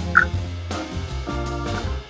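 Background music, with a short high note just after the start.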